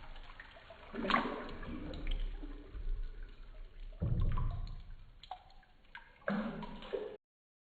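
Water splashing and sloshing around a baby being dipped for swimming, in three louder surges about a second, four seconds and six seconds in, then stopping abruptly.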